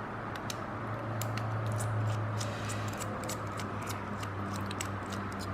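Small irregular metallic clicks and ticks of a T6 Torx driver turning out the tiny standoff screws of an Ontario Rat 2 folding knife.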